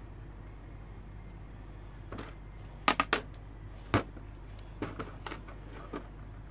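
Hard plastic pieces of a broken spinning top's defence ring clicking and tapping against each other and the plastic basin as they are handled. A few sharp clicks come about three and four seconds in, with lighter taps after. A low steady hum runs underneath.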